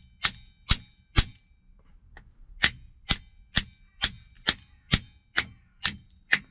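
Repeated sharp metallic strikes, about two a second with a brief ring after each: three blows, a short pause, then a steady run of about nine more. It is hammering on the rusty seat-adjuster mechanism to drive out a part that is stuck.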